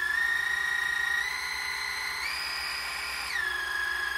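Yovikin cordless water flosser's motor running with a steady high whine. The pitch steps up twice as the power setting is raised, then drops back down near the end.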